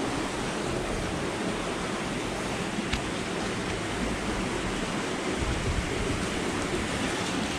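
Steady rush of canal water pouring down a channel beside a lock, with a faint click about three seconds in.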